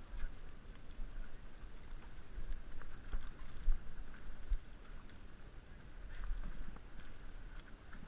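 Wind rumbling on the microphone over water against a small boat's hull, swelling and dipping, with a few faint knocks.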